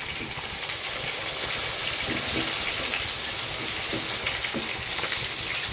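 Milk poured into a hot pan of flour roux, sizzling with a steady hiss as it is stirred in with a silicone spatula, with a few soft scrapes of the spatula.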